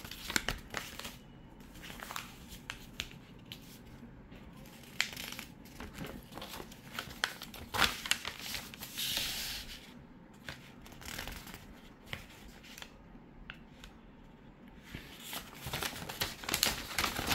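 Paper rustling and crinkling as a folded operating manual and inspection paperwork are handled and unfolded, with scattered crackles and light taps. A longer sliding rustle comes about nine seconds in, and the rustling grows busier near the end.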